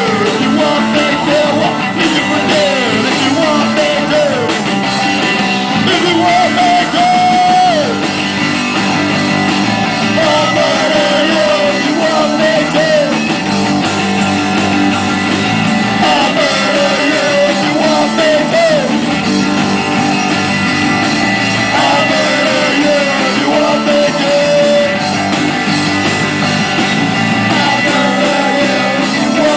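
Rock band playing live: electric guitars and drum kit, with a singer's voice on a microphone.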